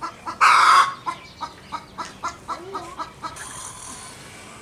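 Farmyard animal calls: one loud call about half a second in, then a run of short, quick calls, about four a second, that stop near the end.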